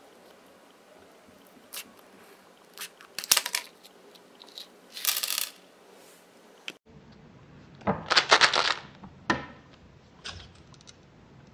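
Scissors snipping through a miniature keychain snack bag made of hard plastic, which gives no pop, and tiny hard plastic snack pieces clattering onto the tabletop. The sound is a series of sharp clicks and short rattles, loudest about eight seconds in.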